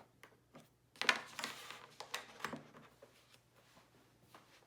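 Handling noise: a run of light clicks and taps, with a longer scraping rustle about a second in, as a cable and portable hard drive are being connected.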